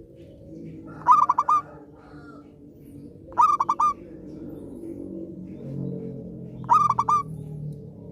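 Zebra dove (perkutut) cooing its song: three short phrases of quick staccato notes, about two to three seconds apart.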